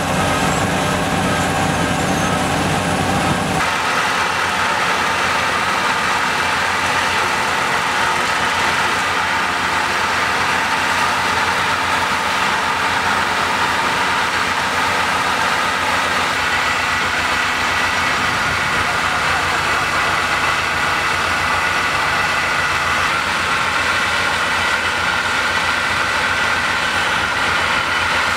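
Tracked asphalt paver's diesel engine running steadily while it lays asphalt; a deep low rumble drops away about four seconds in.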